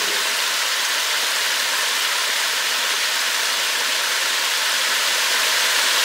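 Small forest stream splashing down a rocky cascade: a steady, even rush of water at constant level.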